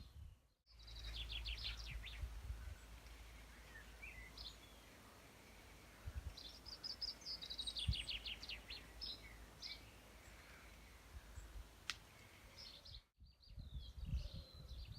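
Songbirds singing in two spells of rapid repeated high notes, over a low steady rumble.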